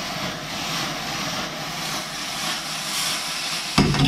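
Fish pieces and teriyaki sauce sizzling in a hot frying pan with a steady hiss after deglazing. Near the end a sharp knock of metal on the pan.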